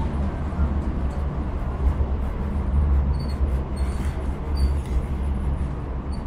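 Sheffield Supertram running along the track, heard from inside the passenger saloon: a steady low rumble of wheels on rail, with a few faint short high squeaks scattered through it.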